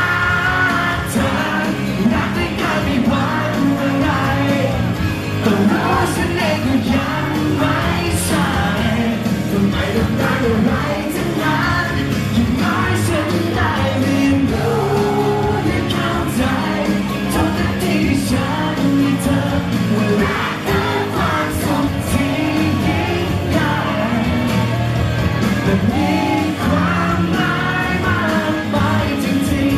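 A man singing a song live into a handheld microphone over loud amplified music accompaniment.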